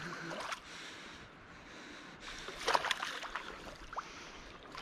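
A hooked trout thrashing in shallow river water over pebbles: short splashes, with a louder flurry a little past halfway.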